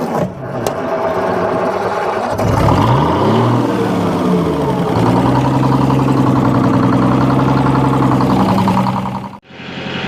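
An engine runs, rises and falls in pitch a couple of seconds in, then settles into a steady run. It cuts off suddenly near the end.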